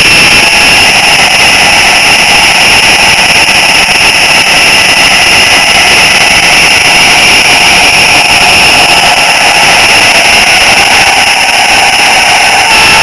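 H0-scale model train's electric motor and gearing whining steadily, heard very close from a camera riding on the train as it runs along the track.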